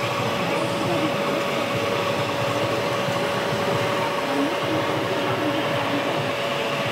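Radio-controlled 1:16 T-150K model tractor driving while pushing soil with its front dozer blade: a steady high whine over a constant noisy rumble.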